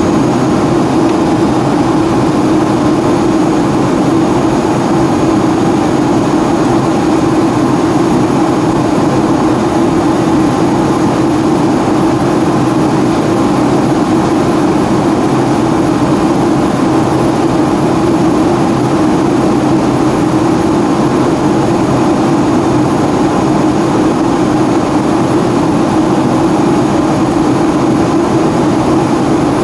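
Steady cabin noise inside a Boeing 757-200 in flight: jet engines and rushing air, unchanging in pitch and level, with a faint high steady whine on top.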